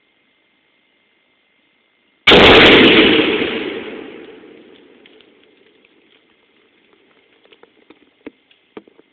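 Two pounds of Tannerite binary explosive detonating when struck by a .308 rifle bullet: one sudden, very loud blast that rumbles away over about three seconds. A few faint small knocks follow near the end.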